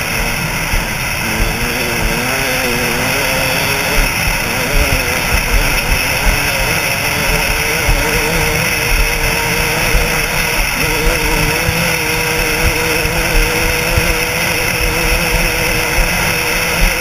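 KTM 200 SX two-stroke dirt-bike engine running hard at race pace, its pitch rising and falling with the throttle, over steady wind rush on the helmet-mounted camera and small knocks from the rough ground.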